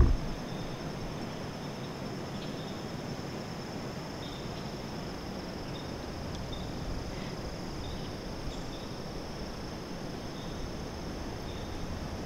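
Steady high-pitched insect chorus, with scattered short chirps over it.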